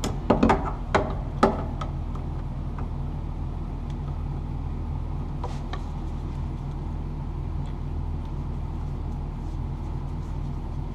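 Several sharp clicks and rattles in the first second and a half as electrical wires are handled and pulled together for splicing, then a few faint ticks, over a steady low hum.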